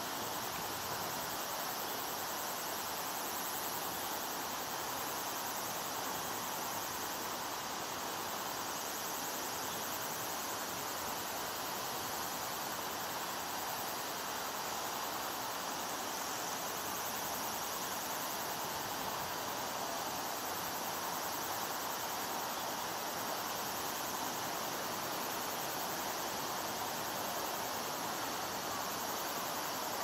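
Steady, even outdoor background hiss with no distinct calls or events.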